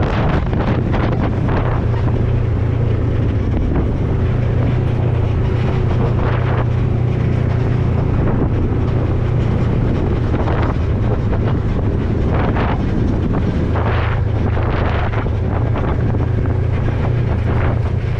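Off-road vehicle engine running with a steady low drone, with wind buffeting the microphone in several brief gusts.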